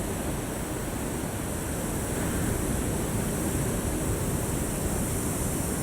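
Ocean surf washing in, a steady rushing noise that swells slightly partway through.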